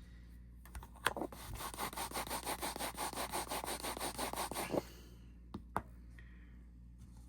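Rapid back-and-forth rubbing of a small watch part by hand, about eight strokes a second for roughly four seconds, starting with a sharp click and ending with a couple of light clicks.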